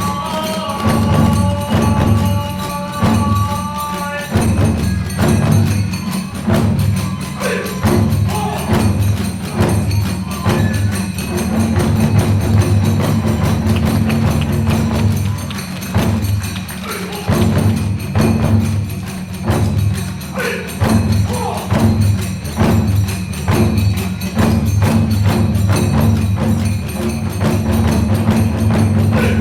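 Kagura hayashi ensemble playing fast and loud: large and small taiko drums beating continuously under clashing teuchigane hand cymbals. Bamboo fue flutes hold steady notes over the first few seconds, then drop out, leaving drums and cymbals.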